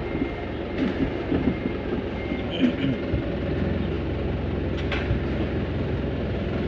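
Truck engine running while driving, heard from inside the cab: a steady low drone, with a faint click about five seconds in.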